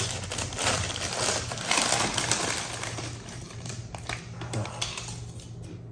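Food packaging crinkling and rustling close to the microphone, thinning out after two or three seconds into scattered small clicks and mouth smacks from eating, over a steady low hum.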